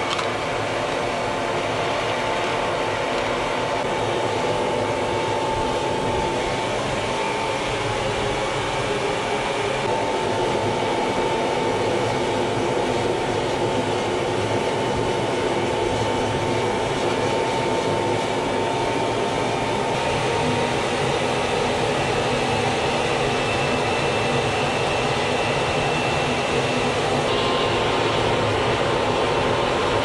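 Electric blower forcing air through a pipe into a charcoal-fired furnace: a steady rush of air and fire with a motor whine, which shifts slightly in pitch a few times. The furnace is at full blast, melting aluminium cans in a cast-iron crucible.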